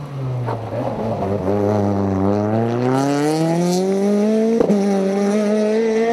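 Rally car engine dropping in pitch as the car slows, then revving up steadily as it accelerates away, with one sharp crack about four and a half seconds in, after which the engine holds a higher steady note.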